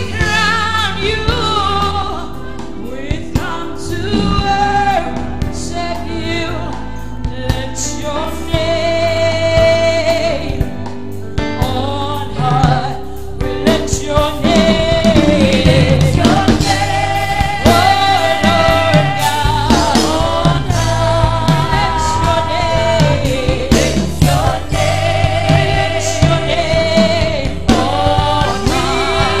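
Live gospel worship music: a woman sings lead into a microphone, joined by backing singers, over a band with a steady bass line.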